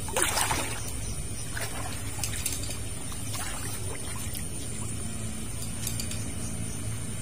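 Shallow water splashing and trickling, with one louder splash just after the start and a few faint clicks, over a steady low hum.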